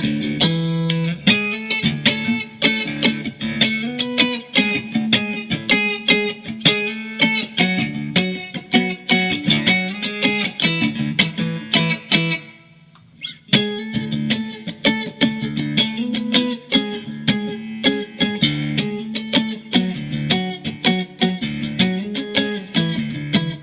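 Mexican-made Fender Stratocaster electric guitar in drop D tuning, played as a run of quick picked notes and riffs over ringing low notes. The playing stops briefly about halfway through, then picks up again.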